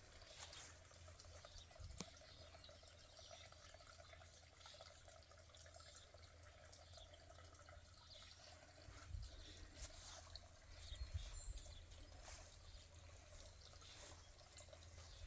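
Near silence: faint outdoor background, with a click about two seconds in and a few soft low thumps later on.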